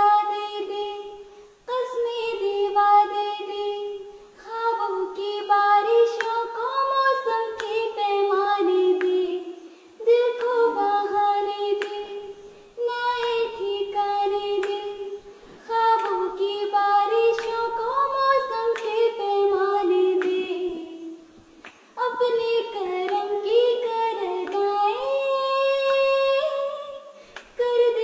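A young girl singing a song unaccompanied, in sustained phrases of a few seconds separated by short breaks for breath.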